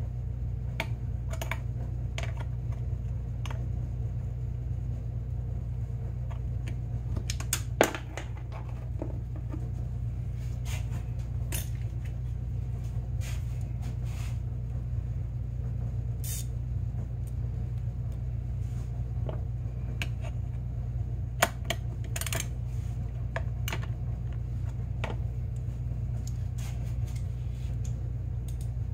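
Scattered light clicks and small metallic clinks of hands working wiring connectors and small metal parts in a snowmobile engine bay, with two sharper clicks, one about eight seconds in and one about twenty-one seconds in. Underneath runs a steady low hum.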